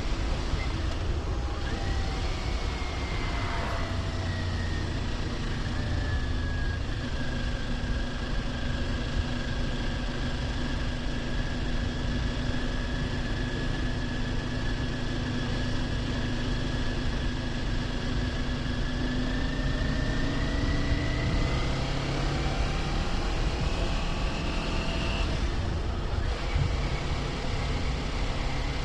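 Kawasaki Ninja 400 parallel-twin engine running under way at cruising speed, over a low rush of wind and road noise. The engine note drops early, holds steady through the middle, then climbs, with a brief break about 26 seconds in like a gear change.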